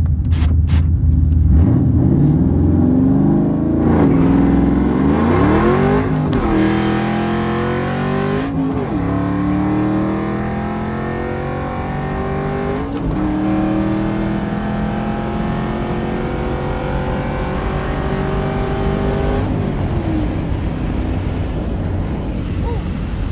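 Cammed 4.6L 2V V8 with long-tube headers, an H-pipe and straight pipes accelerating hard through the gears. The pitch climbs and drops back at each of about four upshifts, then falls away near the end as the throttle is lifted.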